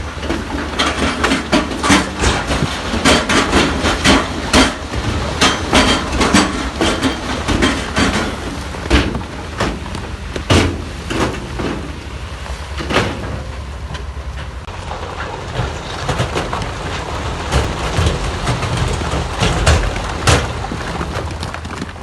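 Diesel engine of heavy earthmoving machinery running steadily under dense, irregular knocking and clattering of stone and steel, busiest in the first half and thinning out toward the end.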